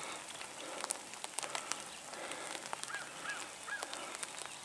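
Crackling rustles and sharp clicks in the grass around the downed wild turkey, with three short, quick calls from a bird about three seconds in.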